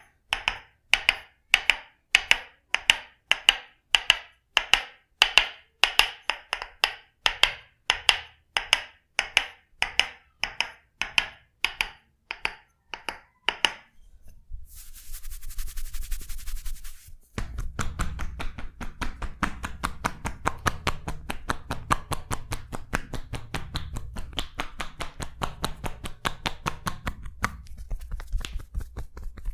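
Percussive massage strikes on the body: sharp, evenly spaced knocks about two a second, then a hiss for about three seconds, then fast light tapping at roughly ten strikes a second.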